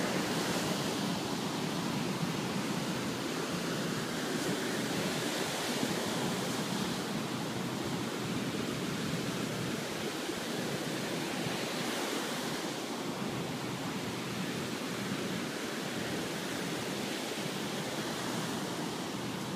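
Ocean surf breaking on a sandy beach: a steady, even rush of wave noise.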